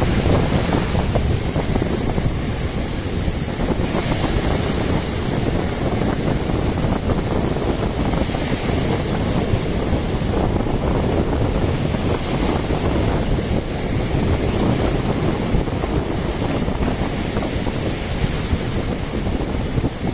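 Wind buffeting the microphone, with sea waves washing in the background; steady throughout with no breaks.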